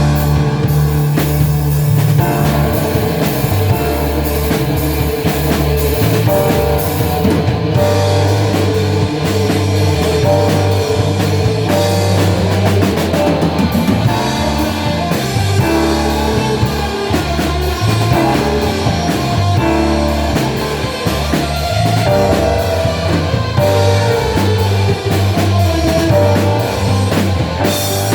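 Rock band playing a psychedelic-rock style groove, with drum kit, guitar and a moving bass line.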